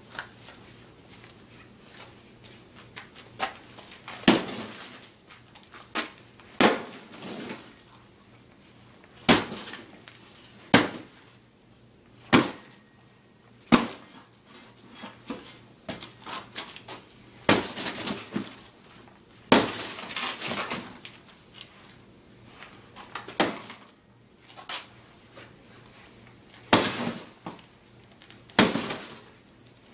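Cardboard-box skate costume, made of printer and shipping boxes with duct tape, sticks and styrofoam wheels, being smashed and crushed apart: a long series of sharp, irregular hits and crunches, some followed by drawn-out crumpling.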